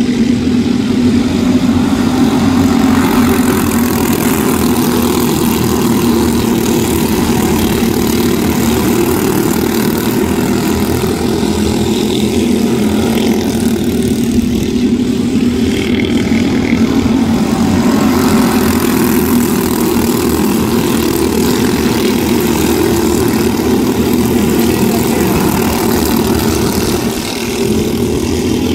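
A pack of quarter-midget race cars running laps together, their small engines making a steady, continuous drone.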